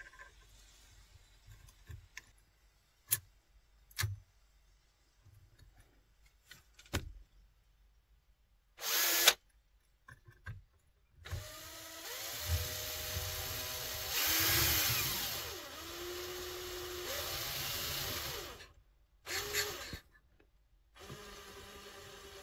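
A few light handling clicks and taps, then a small electric drill running: a brief burst, a long run of several seconds with its speed rising and falling, another short burst, and a steady run starting again near the end.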